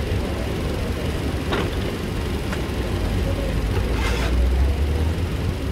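Steady low rumble of a vehicle engine running, with a few light knocks and, about four seconds in, a short clatter as a suitcase is set onto a luggage trolley.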